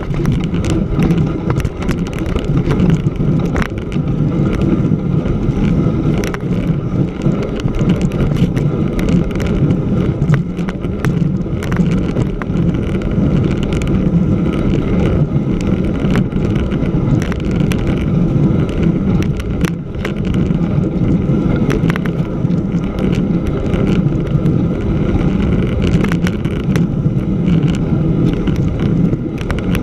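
Bicycle's wide knobby front tyre rolling over crusty snow on lake ice: a steady low rumble with many small scattered clicks, heard through a bike-mounted camera.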